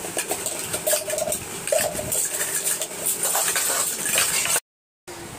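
A metal spoon scraping and clinking against an aluminium cooking pot as biryani is served out, with steel plates clattering, many short clicks and knocks. The sound drops out completely for a moment near the end.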